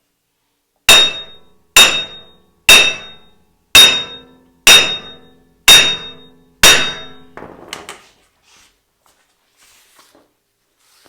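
A heavy hammer strikes the seized wheel hub assembly of a Dodge Ram 1500 seven times, about once a second, each blow ringing like metal. A brief clatter follows the last blow. The hub is stuck fast in the steering knuckle and is being knocked loose.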